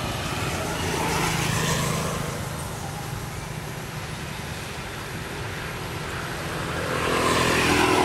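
Road traffic: a vehicle passing, its noise swelling about a second in and fading, then another building up near the end, over a steady low engine hum.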